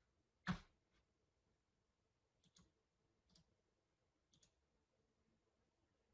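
Near silence with a few faint clicks; one sharper click about half a second in, then three faint ones spread over the next few seconds.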